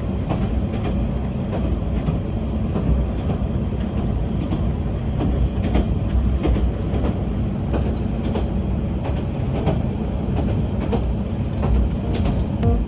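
Diesel railcar running along the track, heard from inside: a steady low rumble with irregular wheel clicks over rail joints.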